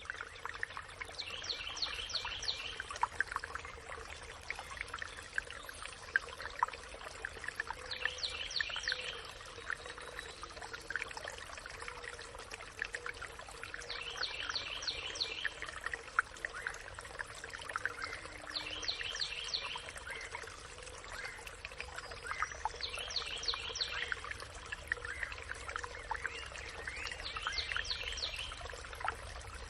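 Birds singing in a forest: one bird repeats a short phrase of quick high notes about every five seconds, over scattered chirps and a steady rushing background noise.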